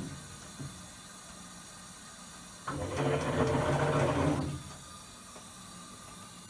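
Hitachi BeatWash BW-8KV top-loading washing machine in its wash cycle: the drive unit turns the pulsator in one burst of about two seconds, a little under halfway in, churning the water, then stops.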